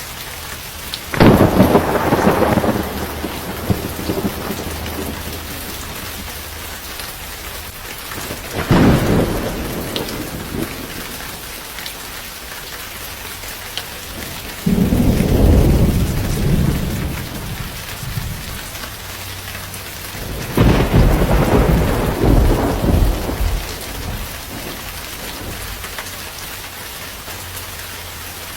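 Steady rain falling, with four rolls of thunder rising out of it, about a second in, around eight seconds, around fifteen seconds and around twenty-one seconds, each rumbling for two to three seconds.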